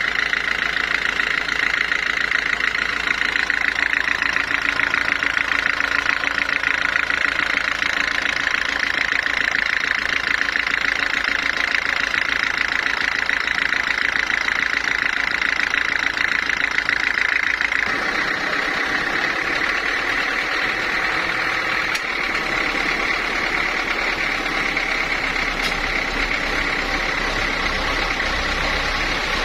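Sawmill machinery running steadily with a high, even whine. About two-thirds of the way through, the sound changes abruptly and becomes a little quieter and thinner.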